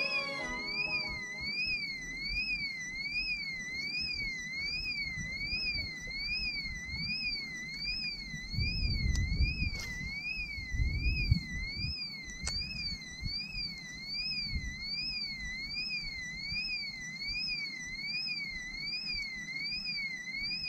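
Electronic alarm warbling, its pitch sweeping up and down about twice a second without a break. Around the middle come some low rustling and a couple of sharp clicks.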